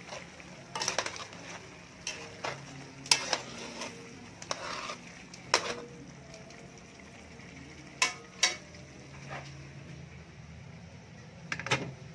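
A cooking utensil stirring chunks of corn on the cob in sauce in a metal pan, with about a dozen irregular sharp knocks and scrapes against the pan.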